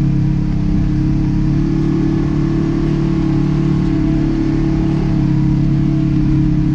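Side-by-side UTV engine running at a steady, even speed as it drives along, heard from inside the open cab behind the seats.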